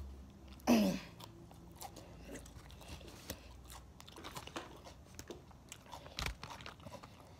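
Close-up chewing of crisp salad, with many small wet crunches as the leaves are bitten and chewed. A short vocal sound falling in pitch about a second in.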